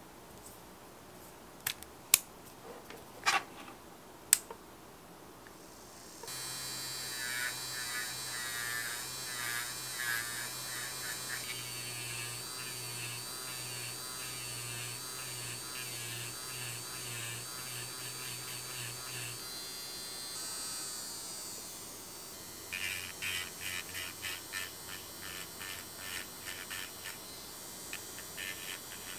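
Electric nail drill. First a few clicks as a rounded bit is fitted into the metal handpiece, then about six seconds in the motor starts with a steady high whine. About two-thirds of the way through its pitch drops, and the bit then buzzes in quick, short pulses against the skin at the nail edge as it grinds off loose cuticle skin.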